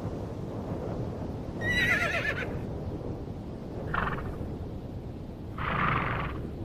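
Przewalski's horse whinnying: a quavering whinny about two seconds in, a short call a couple of seconds later, and a longer, rougher call near the end, over a steady low background rush.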